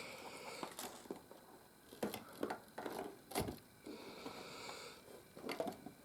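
Lego plastic bricks being handled and pressed back into place: scattered small clicks and taps, with a sharper knock about three and a half seconds in.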